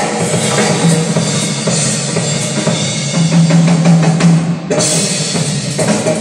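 Drum-heavy music with a pounding kick drum played loud through a car audio system built around a wall of subwoofers.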